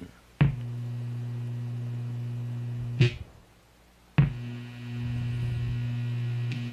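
ADA MP2 guitar preamp putting out a loud, steady low hum as its presets are switched: a click about half a second in brings the hum on, another click around three seconds cuts it off, and after about a second of quiet a third click brings it back. The hum is a fault that has developed in the unit itself, which the owner sets out to fix by replacing resistor R913.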